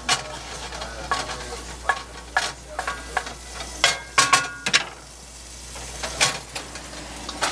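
Wooden spatula scraping the bottom of a cast iron skillet over a low sizzle of red wine, deglazing the pan to loosen the browned bits from the meat, onions and mushrooms. The strokes stop about five seconds in, with one knock a second later.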